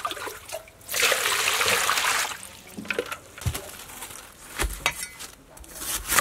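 Water poured into a steel pot of cut napa cabbage: a steady rush lasting about a second and a half. After it come a few scattered knocks, and near the end a cleaver chops into a napa cabbage on a wooden block.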